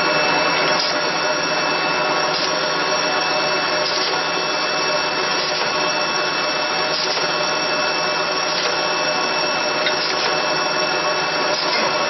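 Automatic air-blowing bottle rinser running: a steady mechanical whir with a constant whine and hiss, and a light regular pulse about every second and a half as bottles cycle through the turret.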